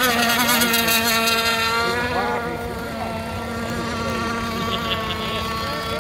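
Small two-stroke gas engines of 1/6-scale RC race boats running at speed, a steady buzzing whine that drops in level about two seconds in.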